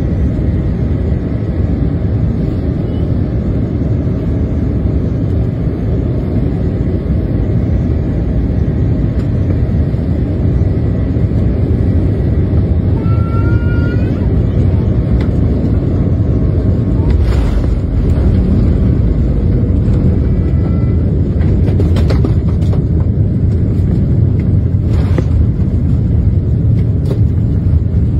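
Steady low noise of a Boeing 787-9's Rolls-Royce Trent 1000 engines and rushing air, heard inside the passenger cabin on final approach to landing. A few brief knocks sound in the second half.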